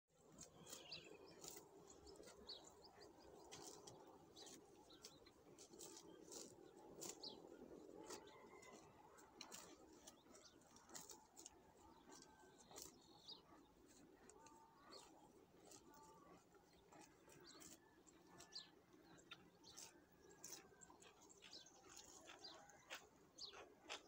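Faint birds chirping in open countryside, many short high calls and a few brief whistled notes scattered throughout, over a soft low background hum.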